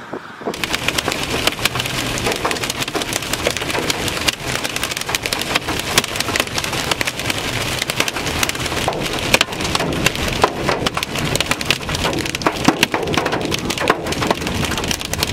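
Hail pelting a vehicle's roof and windshield in a dense, irregular clatter of hard hits over the hiss of rain, starting abruptly about half a second in.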